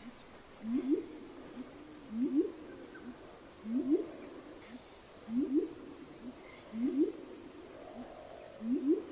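Violaceous coucal calling: a steady series of low, hollow paired notes, each note rising sharply in pitch, a pair about every one and a half seconds, six pairs in all.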